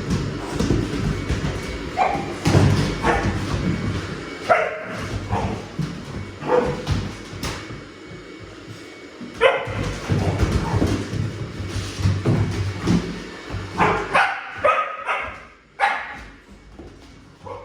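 Dogs fighting, barking and yipping in short irregular bursts over a busy scuffling din.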